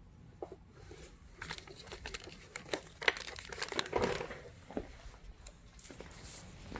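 Faint crinkling and rustling with scattered small clicks and taps, as objects are handled.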